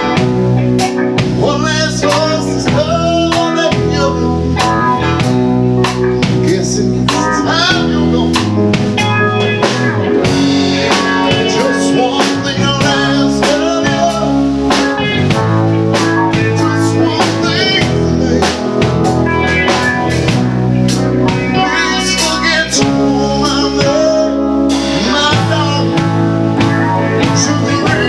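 A band playing a song live: electric guitars and a drum kit with keyboard, loud and steady throughout.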